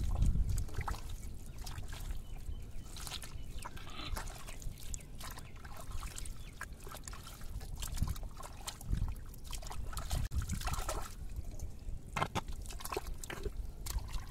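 Hands digging and squelching through thick wet mud, with many short irregular wet clicks and sucking sounds as the mud is pulled apart.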